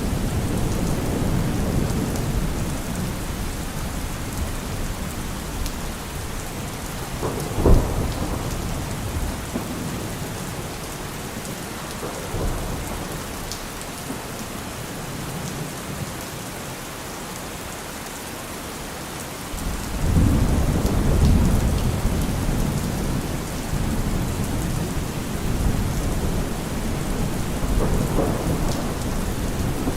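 Steady rain falling, with thunder: a sharp thunderclap about a quarter of the way in, then low rolling thunder that sets in suddenly about two-thirds through and swells again near the end.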